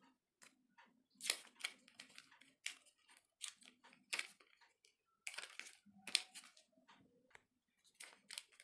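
Paper wrap being peeled and handled off an Apple 20 W USB-C power adapter, in a string of short, irregular scrapes and clicks.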